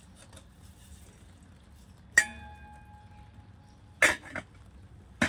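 A sharp metal clang that rings on for about a second, then a louder metallic clatter with a second hit a couple of seconds later, and a short knock near the end: thick metal parts of a grain puffer being handled.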